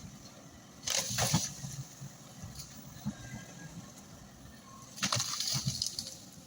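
Water and mud splashing twice, each splash about a second long, as an excavator works waterlogged ground.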